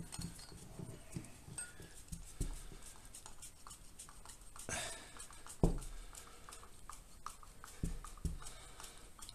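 Faint, irregular knocks and clatter of hand tools and mounting parts being handled, with a single low thump a little past halfway.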